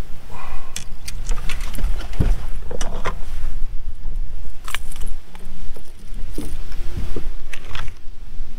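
Wind rumbling on the microphone, with scattered sharp clicks and knocks.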